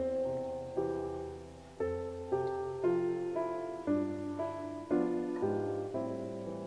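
Background piano music: slow notes and chords struck about once or twice a second.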